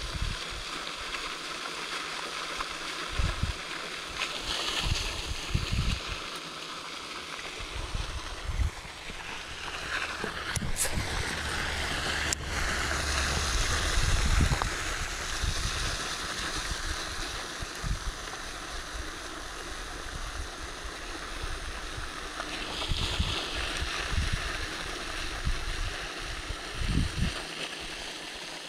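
Open-air water sounds, light lapping and splashing, with wind now and then thumping on the microphone and two sharp clicks near the middle.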